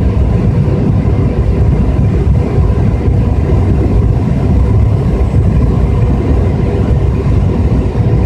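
Jet airliner cabin noise on descent: the steady low rumble of the turbofan engines and rushing air, heard from a window seat over the wing, with a faint steady hum running through it.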